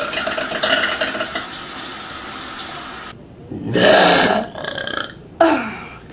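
A woman burping: a long, loud burp a little past halfway, then a shorter one about a second later that falls in pitch. Before them, a steady hiss that cuts off suddenly about three seconds in.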